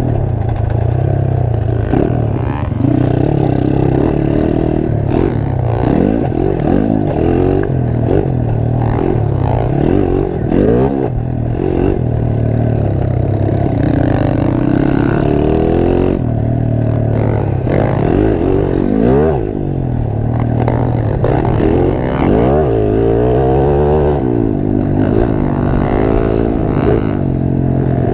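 Dirt bike engine ridden hard around a motocross track, heard close up from onboard the bike: the revs rise and fall over and over with throttle and gear changes.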